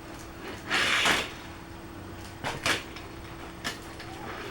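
Small die-cast toy vehicles rolling and clattering on a plastic toy playset track: a short rolling rush about a second in, then a few light clicks and knocks.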